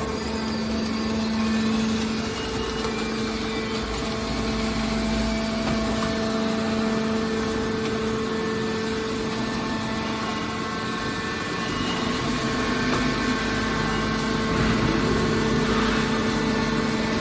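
Hydraulic metal baler running: a steady machine hum holding one pitch, growing slightly fuller in the last few seconds.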